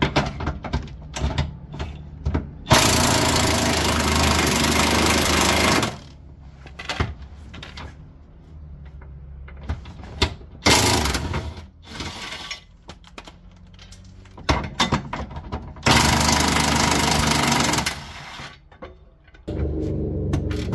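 Cordless impact wrench hammering on suspension bolts under the car in three runs, about three seconds, a second and a half, and two seconds long, with short clicks and blips of the tool between them.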